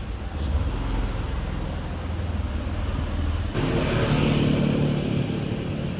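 Street traffic: vehicle engines running with a low rumble, growing louder and fuller from about halfway through as a vehicle comes close.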